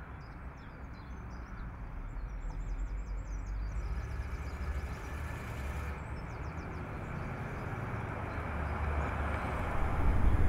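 1959 Cadillac Eldorado Biarritz's V8 engine running at a low, steady pace as the car drives slowly toward the listener. The rumble grows steadily louder as it approaches, with a further jump in level near the end.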